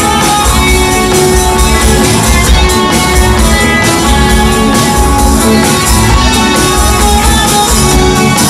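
Live rock band playing loudly: electric guitars over bass and drums, with no vocals in this passage.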